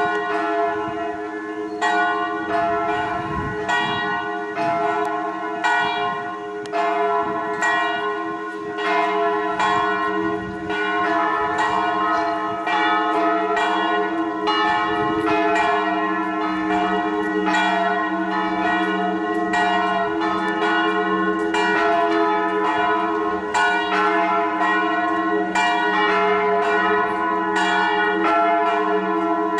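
Church bells ringing, struck about once a second, their deep tones humming on and overlapping between strokes.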